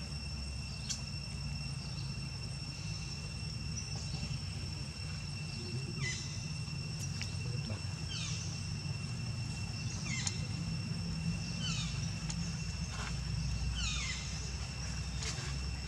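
A steady high-pitched insect drone, such as crickets or cicadas, with a run of short falling chirps from about six seconds in, roughly one a second, over a low rumble.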